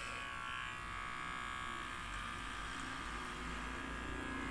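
Electric hair clippers running with a steady buzz while shaving hair off a head.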